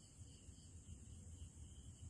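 Near silence: faint night insect chirping, evenly pulsed at about two or three a second, over a low steady rumble.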